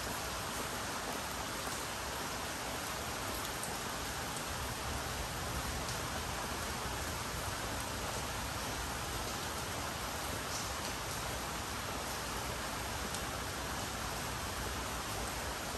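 Steady rain falling, with a few faint drop ticks now and then.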